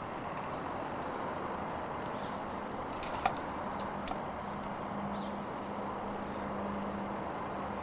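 Steady outdoor background noise with a faint low hum in the middle stretch and a couple of soft clicks a little after three and four seconds in.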